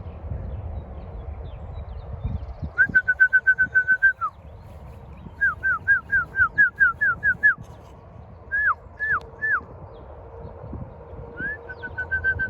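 A songbird singing clear whistled phrases: a fast run of repeated notes, then a series of down-slurred notes, three slower slurred notes, and another fast run near the end.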